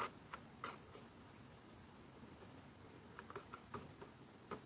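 Faint, scattered clicks and taps of fingers and nails handling a cardstock paper bag while pressing its glued handle into place: a few near the start and a small cluster near the end.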